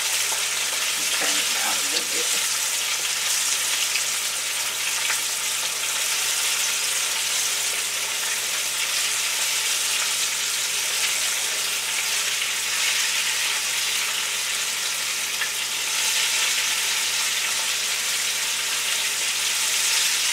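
Floured chicken wings deep-frying in oil in a cast iron Dutch oven: a steady, loud sizzle and crackle of oil that the cook says has got too hot.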